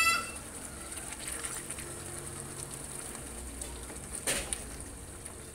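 A thick stew of meat, potatoes and carrots simmering in a frying pan on a gas stove while a spatula stirs it, with one sharp knock about four seconds in.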